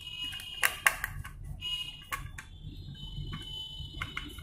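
Light clicks and knocks of a Dell laptop motherboard being handled and pressed on a tabletop, several sharp ones in the first second or so, with a faint steady high-pitched tone underneath.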